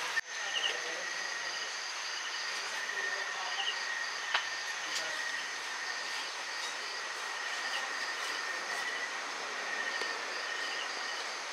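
Night insects calling in chorus: a steady high-pitched buzz with short repeated chirps over it and a soft hiss, and a couple of faint clicks about four and five seconds in.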